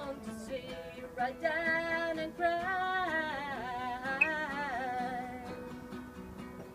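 A woman singing in a high voice with vibrato, accompanied by a plucked acoustic guitar.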